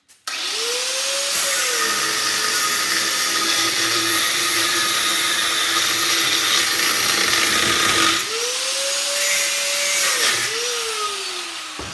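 Corded angle grinder spinning up and cutting into an aluminium-and-copper heat sink clamped in a vise, its whine dropping in pitch under load. About eight seconds in it is lifted off and the whine rises. After one brief touch, the grinder is switched off and winds down with a falling whine near the end.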